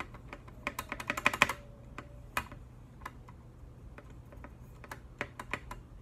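Lubed Gateron Milky Yellow linear switches in a GK64X keyboard being pressed by hand, mostly without keycaps: a quick flurry of key clacks about a second in, then scattered single presses. The switches are smooth, not scratchy.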